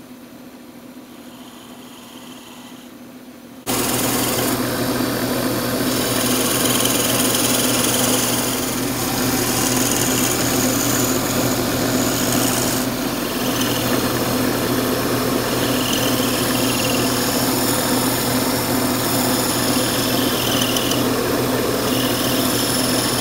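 Small wood lathe running with a turning tool cutting a spinning purpleheart pencil blank on a pen mandrel: a steady motor hum under a dense scraping hiss as the blank is turned down to the bushings. It jumps suddenly much louder about four seconds in.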